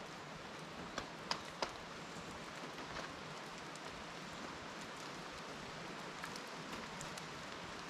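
Rain falling, a steady patter with scattered drip ticks and three sharper drops between about one and two seconds in.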